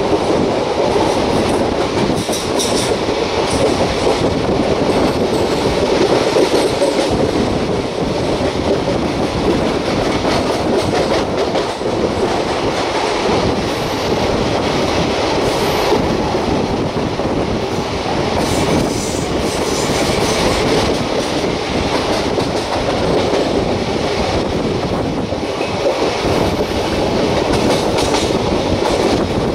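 Passenger train coaches running over the rails, heard from an open coach door: a steady rumble and clatter of the wheels, with faint high wheel squeal a couple of times as the train rounds curves.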